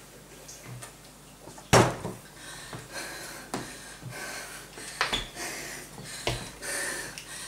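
A person breathing hard, winded from jump rope intervals. There is a sharp knock about two seconds in and a few lighter, irregular knocks after it.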